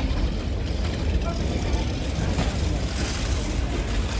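Alaska Railroad passenger cars rolling past on the track, a steady low rumble of wheels on rails.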